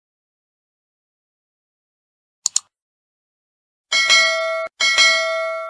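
Subscribe-button animation sound effects: a mouse double-click about two and a half seconds in, then a notification bell dinging twice, about four and five seconds in, the second ding left to fade.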